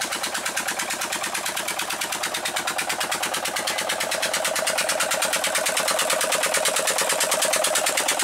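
Single-cylinder Petter diesel engine running steadily under load, driving a tube-well pump by belt, with a rapid, even firing beat. It grows louder over the second half.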